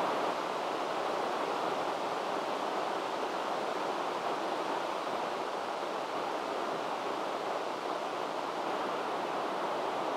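Steady hiss of radio static from an amateur radio receiver's speaker, with no voice coming through: the space station's signal has been lost as it passes out of range.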